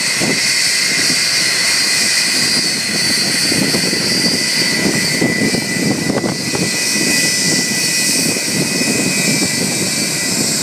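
Boeing 757's twin turbofan jet engines running at low thrust as the airliner taxis onto the runway to warm up for take-off. A steady high whine sits over an uneven, gusty rumble.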